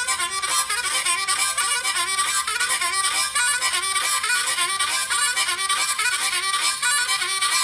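Solo harmonica playing a train-ride tune, a dense figure that repeats evenly over and over.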